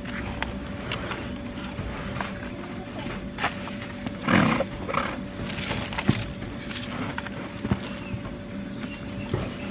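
Compost being worked by gloved hands around a young tree in a plastic pot, then tipped from a flexible plastic tub into the pot: rustling and scattered knocks. About four seconds in, a short squeal with a wavering pitch, likely the tub's plastic flexing or scraping as it is lifted.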